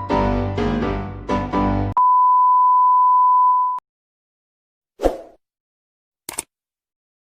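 Piano-like keyboard music stops about two seconds in and is replaced by a steady, single-pitched beep tone, like a censor bleep, lasting nearly two seconds. After a pause there is a short low thump, and a brief click comes near the end.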